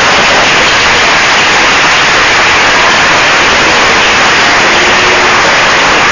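Loud, steady static hiss in the recording, an even noise that covers everything else.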